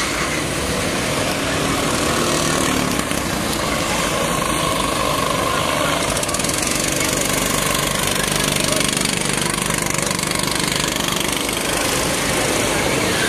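270 cc go-kart engines running as several karts lap the track, a steady mix of engine noise with the revs rising and falling slightly as they pass through the corners.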